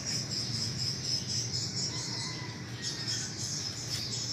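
Steady high-pitched chirring of insects, cricket-like, with a faint thin whistle in the middle.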